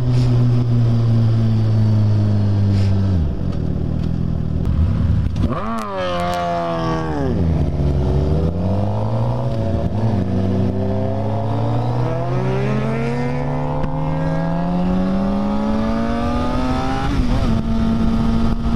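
Sport motorcycle engine heard from the rider's own bike: running steadily, easing off about three seconds in, a quick rev around six seconds, then pulling up through the revs for about nine seconds before a gear change near the end and steady cruising.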